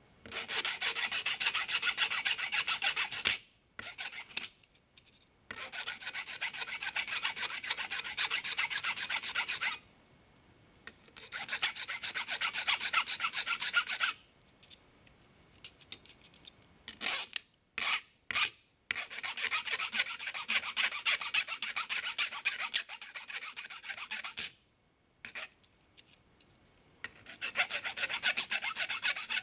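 Flat file rasping across the cut end of a brass rod pin in quick back-and-forth strokes, smoothing the end. The filing comes in several bouts with short pauses between them.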